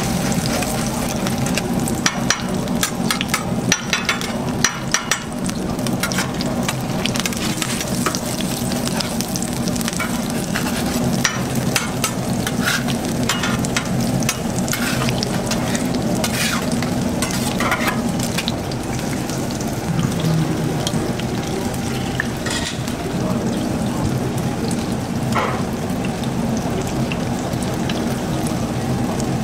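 Battered vegetables and egg frying on a flat metal griddle, sizzling steadily, with metal spatulas scraping and clicking against the griddle, most busily in the first few seconds. A steady low hum runs underneath.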